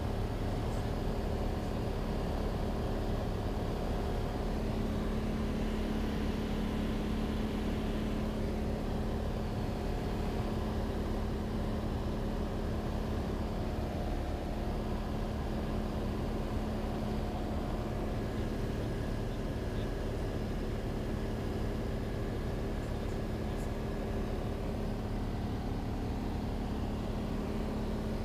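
Cessna 182's single piston engine and propeller droning steadily in flight, heard inside the cabin, with an even hum and no change in pitch.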